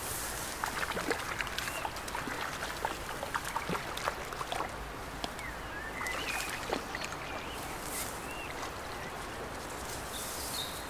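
Outdoor riverbank ambience: scattered light ticks and rustles, with a few short bird chirps around the middle.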